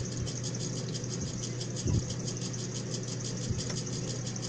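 Hands handling a takeout meal at a table: a dull knock about two seconds in and a couple of lighter taps, over a steady low hum with a fast, even rattle underneath.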